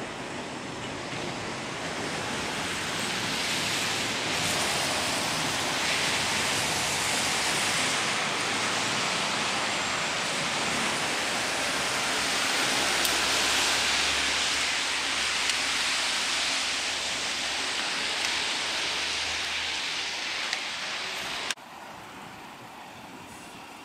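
A train pushed by ALCO RS3 diesel locomotives rolls slowly past: a steady rushing of wheels on rail that swells and then fades, with a low engine drone through its middle. It cuts off suddenly near the end, leaving a fainter steady hiss.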